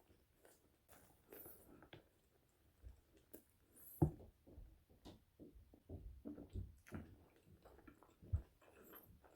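Close-miked chewing of French fries: irregular soft crunches and mouth sounds, with a sharper bite about four seconds in and another near the end.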